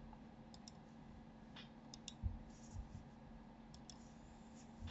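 Faint computer mouse clicks, several in quick pairs, over quiet room tone, with a soft low thump a little after two seconds.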